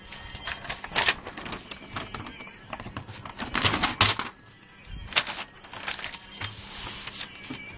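Ballpoint pen scratching across paper in quick, irregular strokes while drawing, with a longer, louder run of strokes about halfway through.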